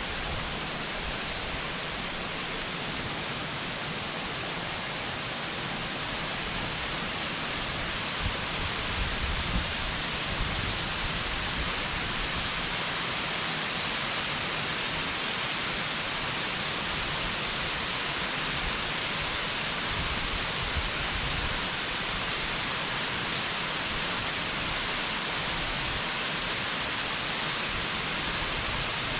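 Waterfall heard from a distance: a steady, even rush of falling water.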